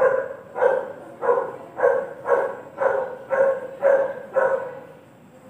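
A dog barking repeatedly, about two barks a second, stopping near the end.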